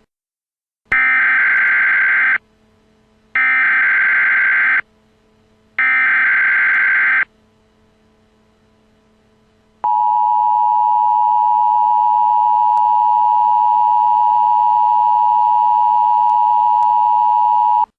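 Emergency Alert System header for a new alert: three bursts of SAME digital data tones, each about a second and a half long, then the steady two-tone EAS attention signal for about eight seconds, stopping abruptly.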